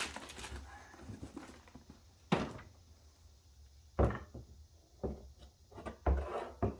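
A handful of separate dull knocks and thunks as the old and new tractor alternators are handled and set down on a hard surface.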